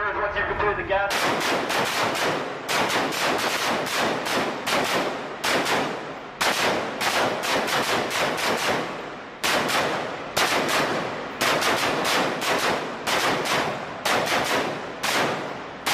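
Automatic small-arms fire from several weapons at once, in rapid bursts with short pauses between them, starting about a second in.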